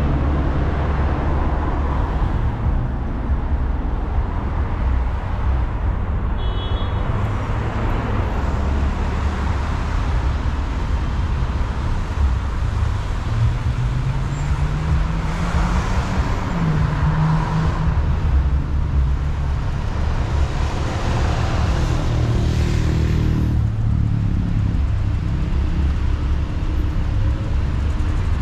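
Car engine and road rumble heard from inside a car driving in slow city traffic, with an engine note rising for a few seconds around the middle. A brief high beep sounds about six seconds in.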